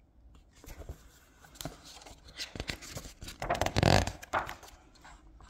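Paper pages of a picture book rustling and crackling as they are handled and turned, with the loudest swish of paper about four seconds in.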